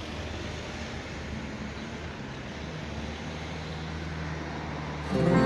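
Steady outdoor background rumble and hiss with a low hum underneath. Music starts just before the end.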